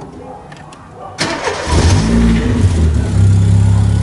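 Chevrolet Corsa Wind four-cylinder engine being started: a sudden crank about a second in, the engine catching with a brief flare in revs, then settling into a steady idle. It is a short start-up noise lasting about a second that the owner questions, suspecting oil pressure, the oil pump or the check valve by the oil filter, while his brother holds it normal for Corsas as long as it does not go on.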